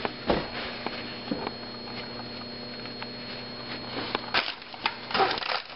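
Rustling and knocking of a hand handling the camera close up, over a steady electrical hum that cuts off about four seconds in. The handling noise grows denser near the end.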